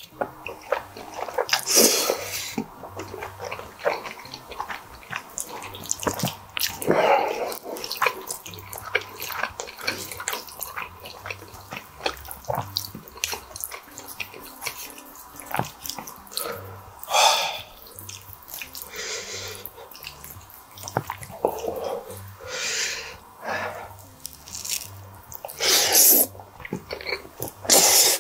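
A person slurping long strands of squid ink spaghetti, several loud wet slurps a few seconds apart, with wet chewing and small mouth clicks between them.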